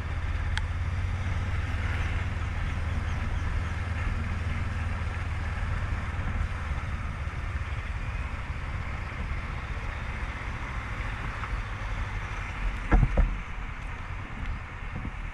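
Honda CB500X parallel-twin motorcycle engine running on the move, a steady low hum under wind and road noise. The hum eases off about halfway through, and there is a brief thump near the end.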